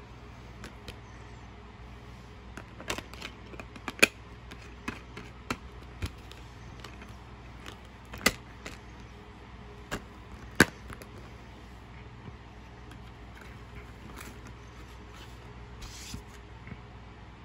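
Sharp plastic clicks and snaps from handling a DVD case and its discs, scattered irregularly, the loudest about four, eight and ten and a half seconds in, over a steady low hum. A short rustle comes near the end.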